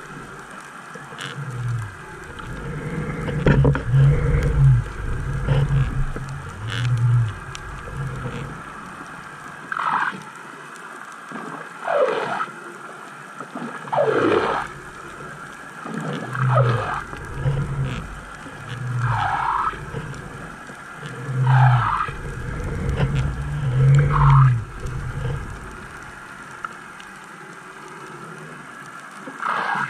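Underwater noise at the camera: uneven low rumbling pulses, and a run of short squeals that each fall in pitch, repeating about every two seconds.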